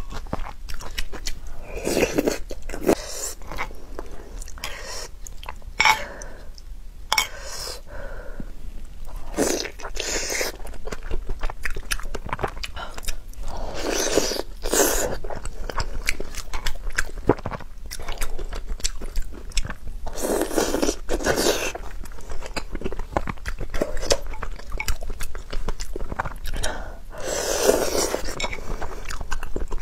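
Close-miked eating: a person chewing and biting soft food with wet mouth clicks, louder bursts of chewing every few seconds.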